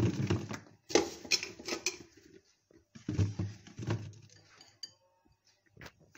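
Cut green chillies tipped by hand into a glass jar, clattering against the glass and one another in three bursts.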